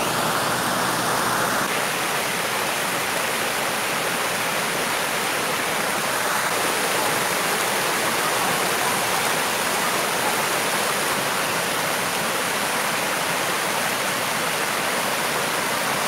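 Steady rushing of a small waterfall: water pouring in white water over a low rock shelf.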